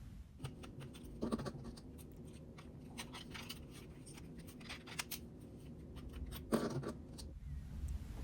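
Small clicks and scratches of the Switch dock's parts being handled during disassembly, with two louder scrapes about a second in and near the end.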